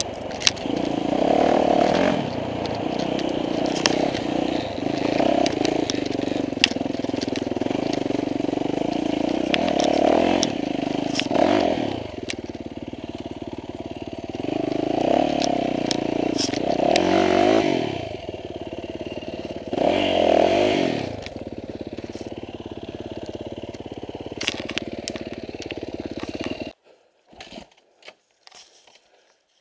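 Riding noise from a bike on a wet, muddy clay trail: a continuous rush that swells and fades several times, with many sharp clicks and rattles as it goes over the ground. The sound cuts out almost completely near the end, leaving only a few brief knocks.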